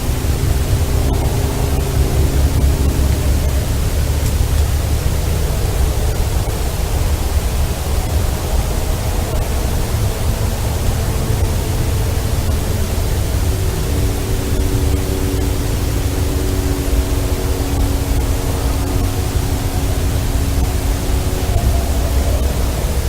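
Loud, steady hiss with a heavy low rumble, the noise floor of a field recording. Faint drawn-out steady tones sit underneath, in the first few seconds and again through the second half.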